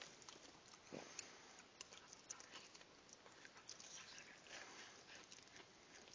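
Faint wet clicking and smacking of a dachshund mother licking her newborn puppy clean, a loose run of soft clicks with one brief lower sound about a second in.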